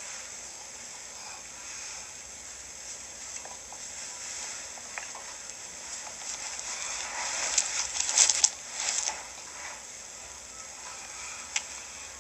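A person snoring: one long, crackling rattle that swells about halfway through and fades, over a steady hiss, with a single sharp click near the end.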